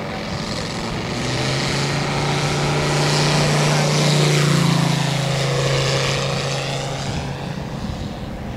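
Scale RC F4U Corsair's Moki radial engine running at takeoff power with its propeller, growing louder as the model rolls down the runway and past. Its note drops in pitch as it goes by, about halfway through, then fades as it climbs away.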